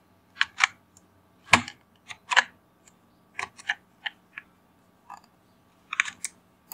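Computer keyboard keys and mouse buttons clicking: about a dozen sharp, separate clicks, some in quick pairs, as shortcuts are pressed and objects are picked and placed.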